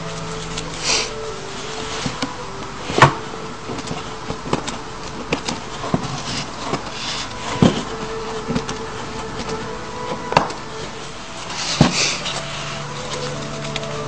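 Sheet of white paper being handled and folded: scattered crinkles and rustles with a few sharp crease snaps, the loudest about three, eight and twelve seconds in.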